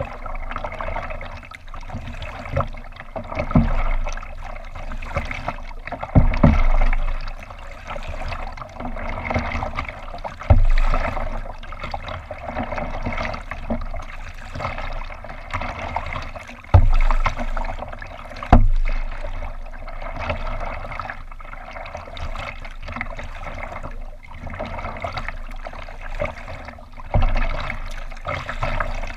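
Water lapping and trickling against a kayak's hull, with about half a dozen dull low thumps spread through the stretch.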